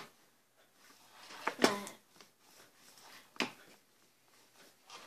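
Gigabyte M6900 gaming mouse buttons clicking: a few sharp, separate clicks one to two seconds apart, the loudest about one and a half seconds in.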